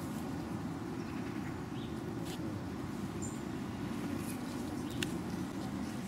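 Outdoor ambience: a steady low rumble with a few light clicks and one brief high chirp about three seconds in.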